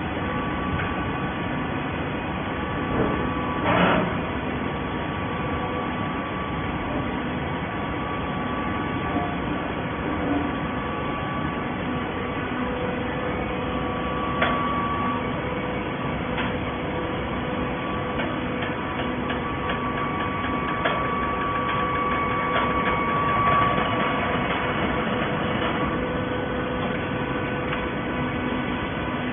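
Baling machine running steadily with a mechanical hum and several steady tones. There are a few short knocks and clanks, the loudest about four seconds in, and a busier stretch a little past two-thirds of the way through.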